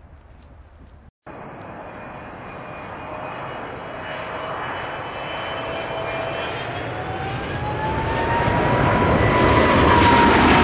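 Boeing 777 jet airliner passing low overhead on approach with its landing gear down, the twin-engine jet noise growing steadily louder. A thin engine whine rises in pitch through most of the pass and dips slightly near the end.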